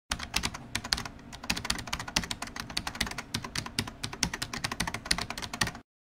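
Computer-keyboard typing: a fast, irregular run of key clicks that cuts off suddenly near the end.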